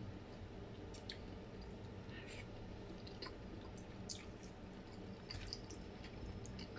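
Chewing and wet mouth sounds of a person eating soft food in sauce, with scattered short clicks of a plastic fork in a plastic takeaway container.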